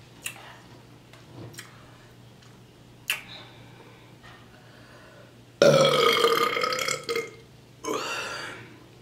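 A woman burping twice: a long, loud burp a little past halfway, then a shorter one about a second later. A few short clicks come before them.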